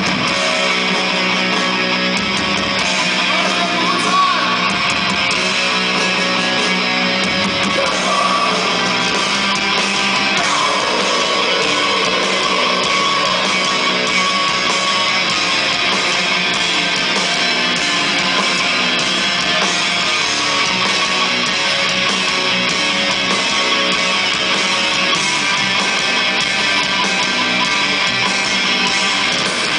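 Death metal band playing live through a PA: distorted electric guitars and drums, loud and unbroken, heard from within the crowd.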